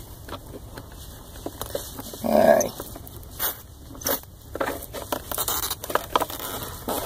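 A Phillips screwdriver turning a stiff, weathered screw in a plastic telephone network interface box: scattered clicks and scraping as the handle is worked round. A brief louder sound about two and a half seconds in.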